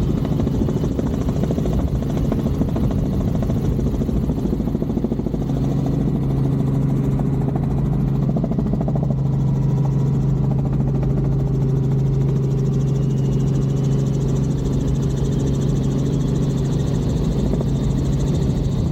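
Tour helicopter's engine and rotor running steadily: a loud, continuous drone with a low hum that grows stronger about five seconds in.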